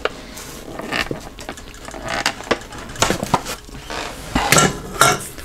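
Kitchen handling sounds: a measuring cup of bread flour emptied and tapped into a bread machine pan, with scattered light knocks and clicks as utensils are handled.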